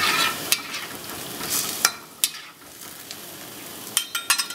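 Sauce sizzling in a wok as cornstarch slurry is poured in and stirred, the sizzle dying down about halfway through. Sharp clicks of a metal utensil striking the wok come a few times, with a quick cluster near the end.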